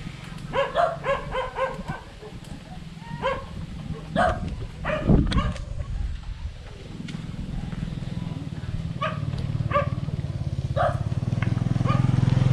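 Short, sharp animal calls in quick runs, with scattered calls after. A low steady motor-like rumble starts about halfway through and grows louder toward the end.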